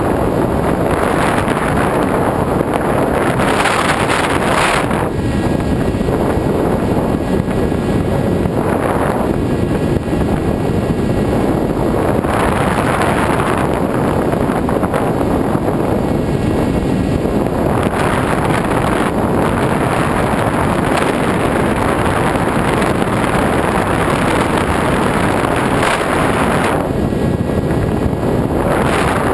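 Airflow rushing over a GoPro mounted on a flying RC foam glider: loud, steady wind noise that swells and eases every few seconds, with a faint high whine at times.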